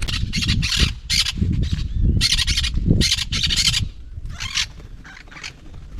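Parrots screeching: a quick run of short, harsh squawks over the first four seconds, then a few more spaced squawks.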